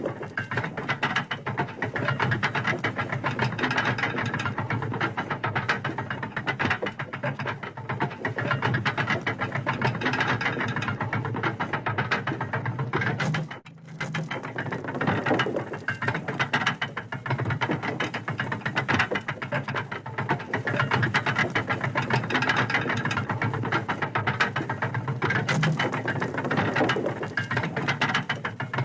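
Railway turntable turning: a continuous, dense clatter of rapid mechanical clicks and rattling. It drops away briefly about halfway through, then carries on.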